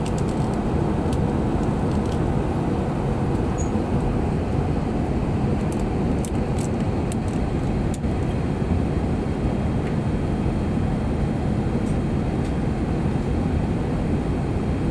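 Airliner cabin noise: the steady rumble of jet engines and airflow heard from inside the passenger cabin as the plane descends for landing, with a few faint clicks.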